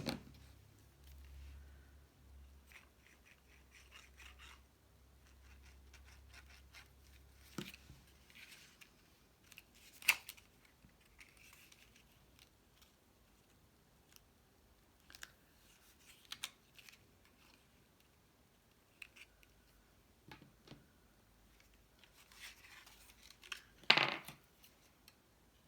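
Quiet rustling as a cardstock box card is handled and folded, broken by a few separate sharp clicks or snips; the loudest comes near the end.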